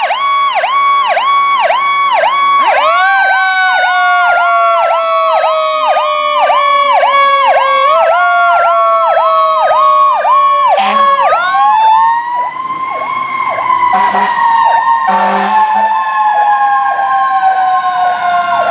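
Responding fire engine's sirens: an electronic siren cycling fast, about two and a half times a second, layered with a mechanical siren that winds up about three seconds in, again about eight and twelve seconds in, and slowly falls in pitch between. Short horn blasts sound about eleven and fifteen seconds in.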